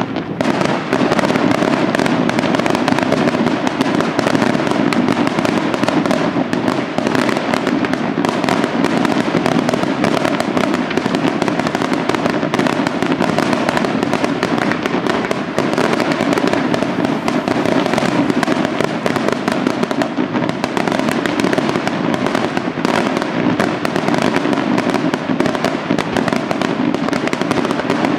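Aerial fireworks display going off in a dense, continuous barrage of bursting shells and crackle, with no let-up. It rises to full intensity within the first second.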